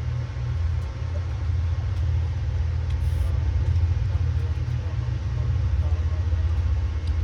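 Low, steady rumble inside a moving Amtrak passenger car as the train runs along the track shortly after pulling out.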